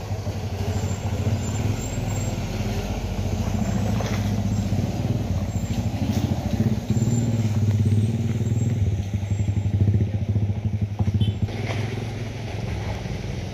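Light truck's engine running under load as the truck pulls away up a steep slope, followed by cars' engines and tyres passing close by. The engine note is steady and gets louder for a few seconds in the middle.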